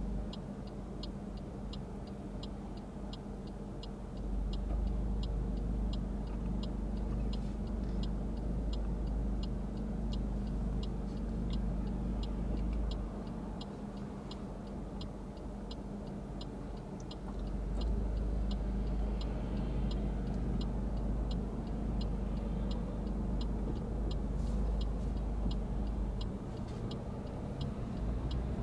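Car's turn-signal indicator ticking evenly, about two to three clicks a second, over the low rumble of the engine and passing road traffic, which swells twice.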